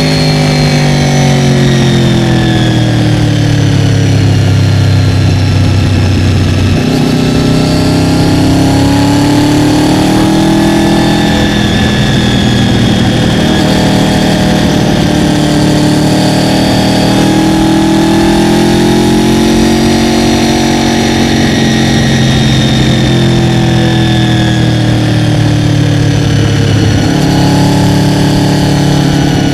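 Honda VFR800FI's V4 engine running under way, its pitch falling and rising several times as the revs change with the throttle.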